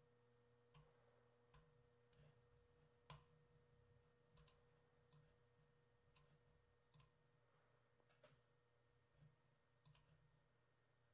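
Near silence broken by faint, irregular computer mouse clicks, about a dozen, over a faint steady hum.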